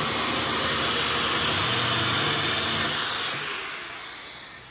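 A steady mechanical running noise, like a motor or engine, that fades away over the last second or two with a faint falling whine.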